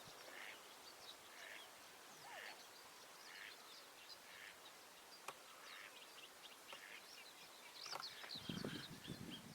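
Faint outdoor bird calls: a short call repeated about once a second among scattered high chirps, with a couple of sharp clicks. A low rumble comes in near the end.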